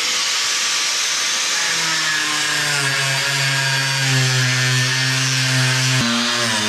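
Big die grinder running continuously, grinding into burnt fiberglass; its tone sinks slowly as it bears into the material and shifts abruptly about six seconds in.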